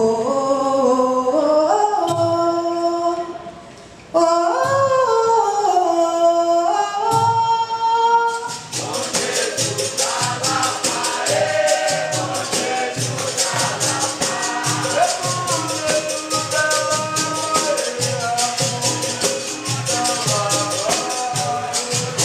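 Capoeira Angola roda music. For about eight seconds a solo voice sings long, sliding held lines, with a short break near four seconds. Then a fast, steady rhythm of pandeiro and berimbau comes in, with a group of voices singing.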